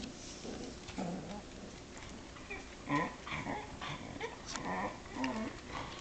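Shetland sheepdog puppies growling and whining, a run of short, bending calls that crowd together through the second half.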